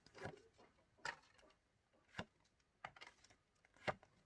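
Faint, scattered clicks and rustles of Pokémon trading cards being handled and sorted through by hand.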